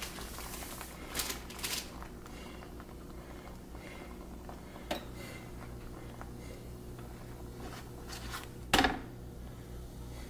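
Square metal griddle pan on a stove: a few light clicks and one louder knock about nine seconds in, over a faint steady hum.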